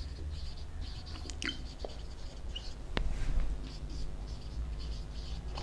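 Marker pen writing on a whiteboard: a string of short scratchy strokes as a word is written out, with a sharp click about three seconds in, over a low steady hum.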